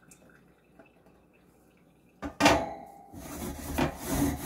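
A wire oven rack clanks against a stainless steel sink about two seconds in, ringing briefly, then steel wool starts scrubbing back and forth across the rack's wires.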